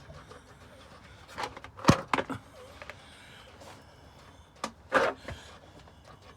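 Sharp knocks and clanks in two clusters, several in quick succession about one and a half to two and a half seconds in and another few about five seconds in.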